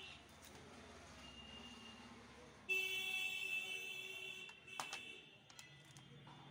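A horn sounds steadily for about two seconds, starting near the middle. Just after it comes a few sharp clicks of plastic cassette cases being handled, over a faint low hum.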